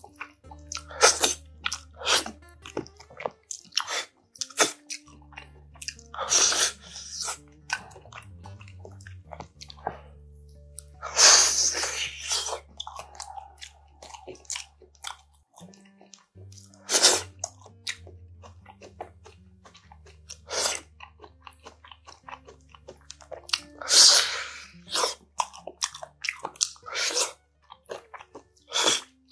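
Close-up eating of braised spicy pork backbone: wet chewing and sucking meat off the bones, with many short sharp clicks and a few louder, second-long slurps.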